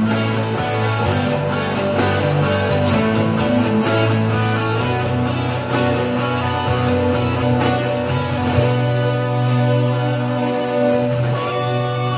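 Instrumental introduction of a Bajau (Sama) pop song, led by guitar over a steady beat, played through stage loudspeakers before the vocals come in.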